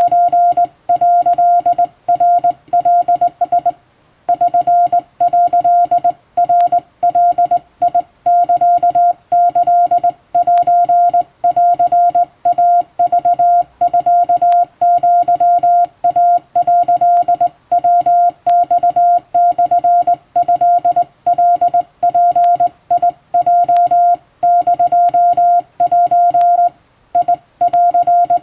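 Japanese Wabun Morse code sent by hand on a telegraph key: a single steady beep keyed on and off in dots and dashes, with short gaps between characters and a slightly longer break about four seconds in.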